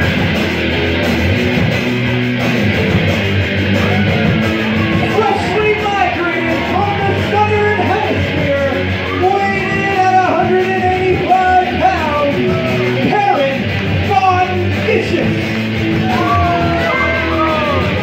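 Loud rock music with vocals starts suddenly and plays on steadily.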